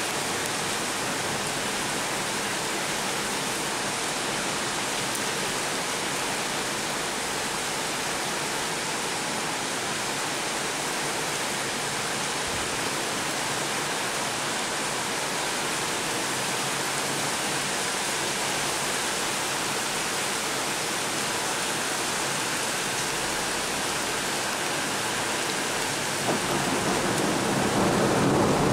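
Heavy rain pouring steadily onto a flooded street, a constant hiss of water. Near the end a louder, deeper rumble joins in.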